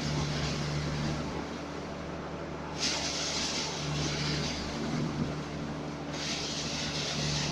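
Stationary concrete pump running steadily, with a hissing surge coming in about every three seconds as it cycles through its pumping strokes.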